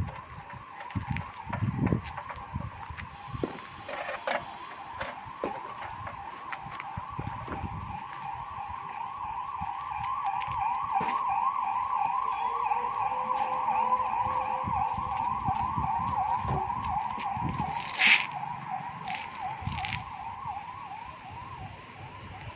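Emergency vehicle siren in a fast, repeating yelp that grows louder and then fades. Scattered knocks from handling the work can be heard with it, and one sharp clink comes late on.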